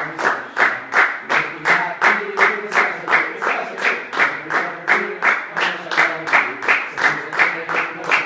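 Hands clapping in unison in a steady rhythm, about three and a half claps a second.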